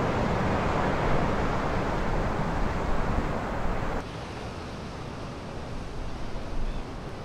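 Steady rushing of wind and Atlantic surf, dropping suddenly to a quieter hiss about four seconds in.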